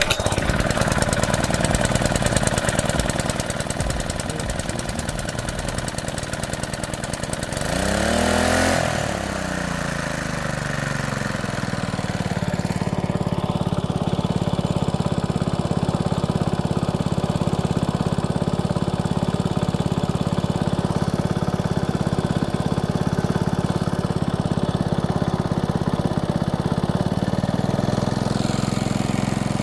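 Freshly rebuilt Honda GX120 single-cylinder four-stroke engine running after its first start. It revs up and back down about eight seconds in, then settles to a steady idle from about twelve seconds on.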